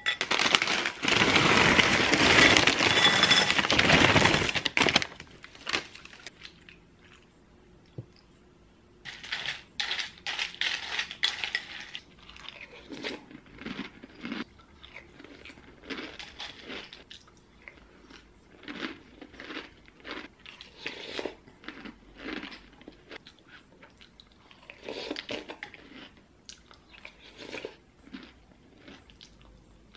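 A loud rushing noise for the first four seconds or so, then eating sounds: a wooden spoon against a ceramic bowl, with slurping and chewing coming in short spells.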